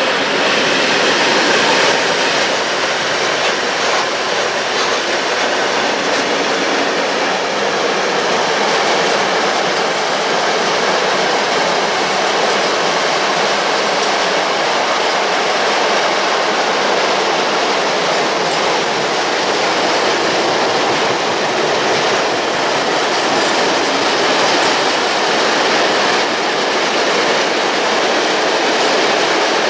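Mixed freight train hauled by an ET22 electric locomotive passing on the line, with a loud, steady rolling noise of wagon wheels on the rails.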